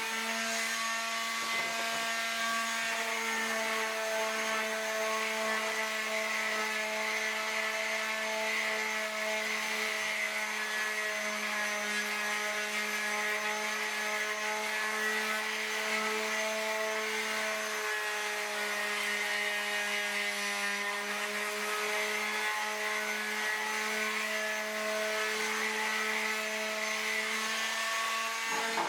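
Electric power sander running steadily with a motor hum and the hiss of abrasive on wood, its pitch sagging slightly about two-thirds of the way through as it is loaded.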